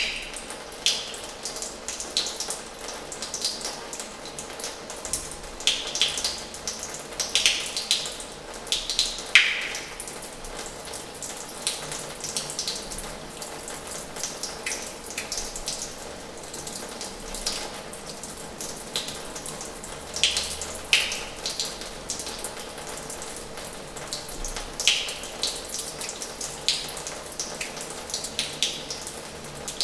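Water running from the tap of an old washhouse: a steady flow of running water, broken by frequent irregular sharper splashes.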